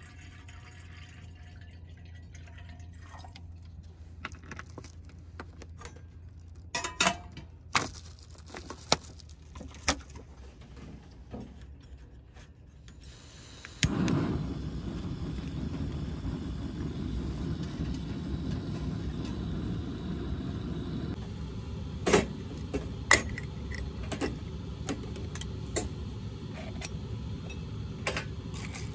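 Water poured from a bottle into a gooseneck kettle, with a few clinks of metal. About halfway through, a click is followed by a steady low rushing, the sound of a gas stove burner running under the kettle. Later come a few sharp clicks and knocks from handling a jar of coffee beans and a hand coffee grinder.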